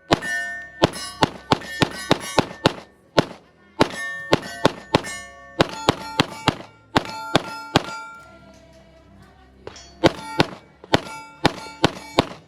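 Rapid semi-automatic fire from a Sig Sauer P320 pistol, each shot followed by the ringing clang of steel targets at several different pitches. After about eight seconds of fast shooting there is a pause of roughly two seconds, then another quick string of shots and rings.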